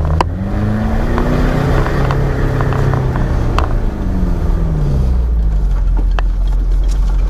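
Off-road 4x4's engine revving up and falling back several times under load, over a steady low rumble, with scattered sharp knocks and clicks.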